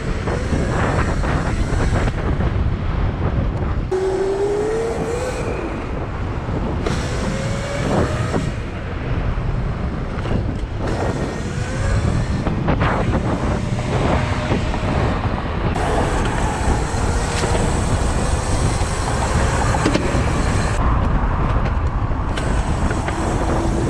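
Steady riding noise on a Razor MX500 electric dirt bike: wind rushing over the microphone together with road and traffic noise. Faint whines glide up and down in pitch now and then.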